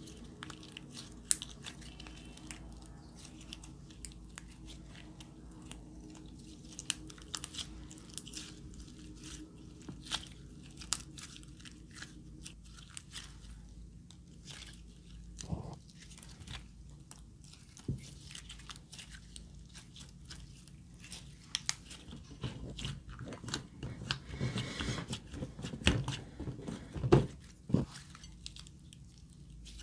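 Hands squishing and stretching glossy clear slime mixed with crushed eyeshadow and glitter, making a run of small sticky clicks and crackles. The clicks grow busier and louder near the end, with a few sharper pops.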